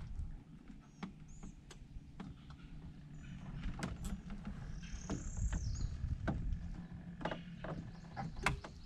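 Scattered knocks and clicks of fishing tackle being handled in a small boat, over a low rumble, with a few short bird chirps.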